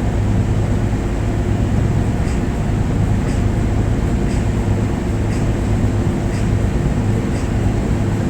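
A boat's engine running at a steady drone, with a faint tick about once a second.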